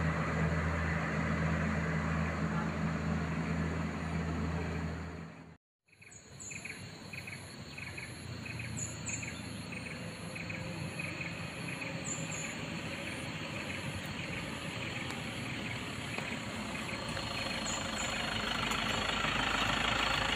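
A truck's diesel engine runs with a steady low hum and cuts off abruptly about six seconds in. After that comes open-air roadside sound with short bird chirps and an even high ticking. A truck engine idles, growing louder near the end.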